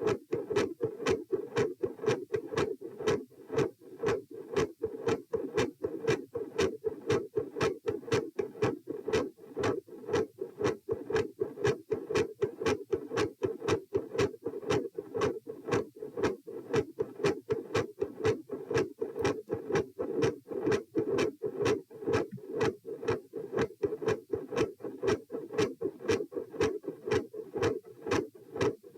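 Heart sounds recorded over the pulmonic area: a steady, regular train of lub-dub beats in which the second heart sound (S2) is consistently loud and the first sound (S1) varies in strength.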